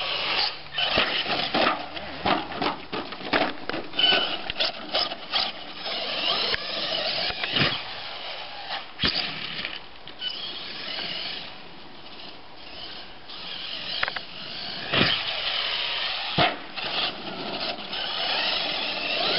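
Brushless electric motor of a Team Losi LST2 RC monster truck on a 5S LiPo, whining in bursts as the throttle is blipped. Mixed in are many sharp clattering knocks as the truck lands from ramp jumps and tumbles on the grass.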